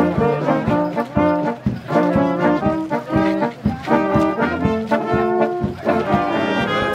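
Brass band music, trumpets and trombones playing a brisk tune over a steady beat.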